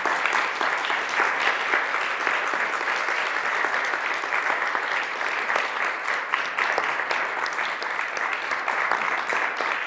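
Lecture audience applauding steadily: many hands clapping in a dense, even patter.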